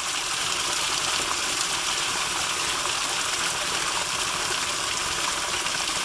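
Small waterfall splashing into a shallow rock pool: a steady sound of falling water.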